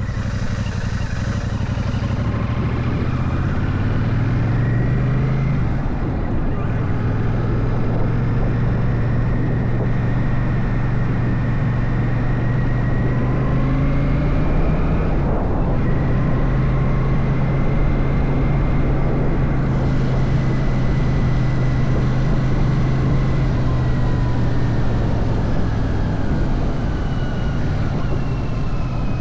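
Royal Enfield Shotgun 650's parallel-twin engine running under way, the revs climbing at first, a brief dip about halfway through as it changes gear, then a long steady cruising note that eases off near the end.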